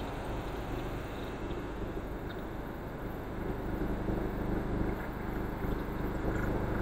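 Single-cylinder diesel engine of an interlocking earth-block press running steadily, a low, even engine hum that holds the same pitch throughout.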